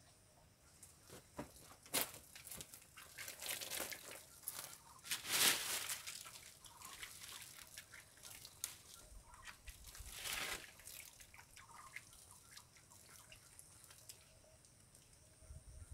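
Dry leaf litter and twigs rustling and crunching in irregular bursts under footsteps in rubber boots, loudest about five seconds in and again around ten seconds in.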